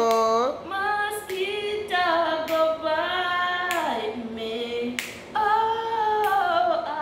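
A woman singing unaccompanied, holding long notes that slide up and down in pitch, with a few sharp clicks between phrases.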